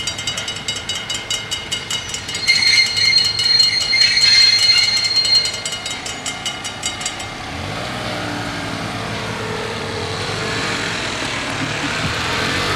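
Dutch level-crossing bells ringing in rapid, even strokes while the half-barriers rise, with a louder, steady high tone over them for about three seconds; the bells stop about seven seconds in. Then waiting cars pull away across the crossing, an engine rising in pitch as it accelerates.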